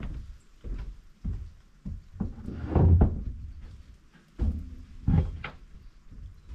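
An irregular series of dull thumps and knocks, about one every half second to second, with the loudest one about three seconds in.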